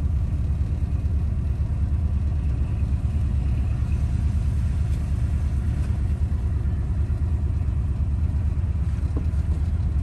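Steady low in-cabin drone of a Volkswagen Type 3's air-cooled flat-four engine and tyres on wet pavement while cruising slowly.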